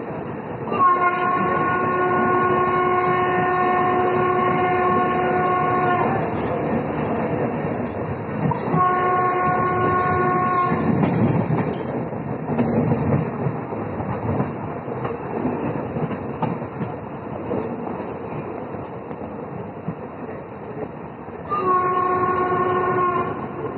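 Train horn sounding three times: a long blast of about five seconds, a shorter one a few seconds later, and another short one near the end. Under it runs the steady rumble and clatter of passenger coaches' wheels on the rails, heard from a window of the moving train.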